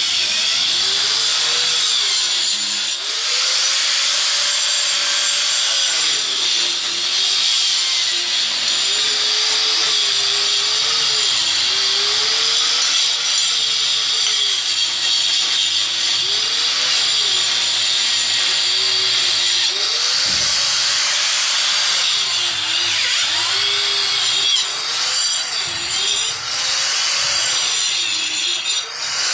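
Handheld electric cutter with its disc grinding a groove into a brick wall, running continuously. The motor's pitch keeps sagging and recovering every second or two as the disc is pushed into the brick, with a few brief drops in loudness near the end.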